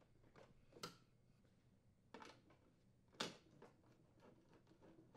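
Faint, scattered clicks and taps of a screwdriver and screws as the oven door's handle and trim assembly is fastened to the inner panel, the loudest a little past three seconds in.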